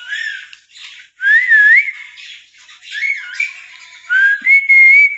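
Clear whistled phrases, a rising and wavering glide and then several held notes, over the scratchy chatter of caged lorikeets.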